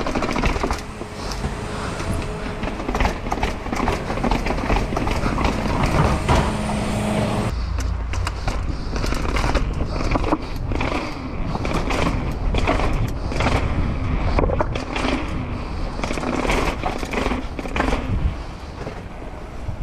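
Mountain bike ridden fast downhill: wind buffeting the microphone in a low rumble, with the bike rattling and the tyres clattering over bumps in many short knocks.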